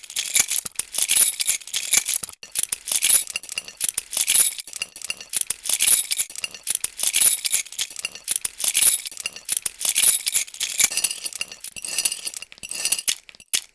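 A bunch of metal keys jingling, shaken in repeated bursts of bright clinks about once a second. In the last few seconds the shakes are lighter and the keys ring on between them.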